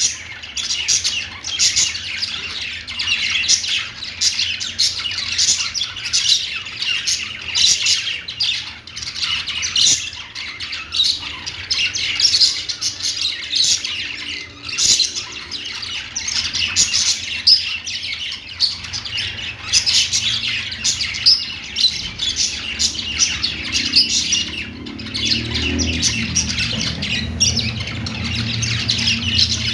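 Budgerigars chattering, warbling and chirping without a break, several birds at once with many quick high notes. A low hum comes in near the end beneath the birds.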